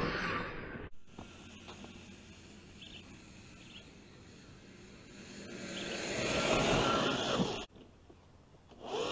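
Electric motor and gearbox whine of a Traxxas TRX-4 radio-controlled crawler driving through snow. It is loud at the start and cuts off suddenly about a second in. It swells again as the truck comes close about six to seven seconds in, then cuts off sharply.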